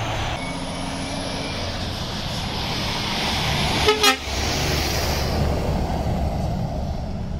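Articulated lorries with diesel engines driving past close by, a steady low rumble, with a short lorry horn toot about four seconds in.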